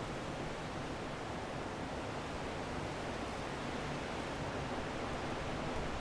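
Strong wind blowing steadily: a dense, even rushing noise without a whistling tone, swelling a little near the end.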